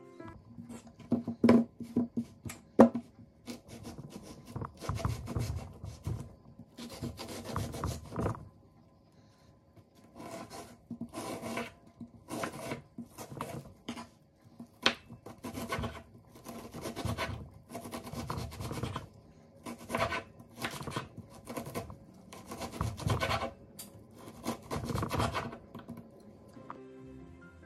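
A chef's knife slicing and dicing an onion on a wooden cutting board: a run of short cutting strokes, with a few sharp knocks of the blade on the board in the first few seconds and a short pause about a third of the way in.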